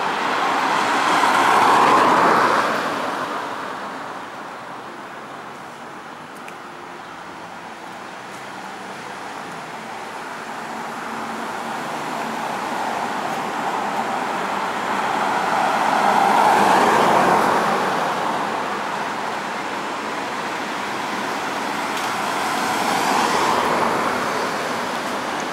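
Street traffic on an asphalt road: vehicles pass one after another, their tyre and engine noise swelling and fading three times, loudest about two seconds in and again about two-thirds of the way through.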